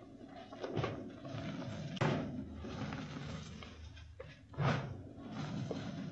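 Pressed chalk reforms being crushed and crumbled by hand: gritty, crumbly rustling with sharper crunches under a second in, at about two seconds and near five seconds.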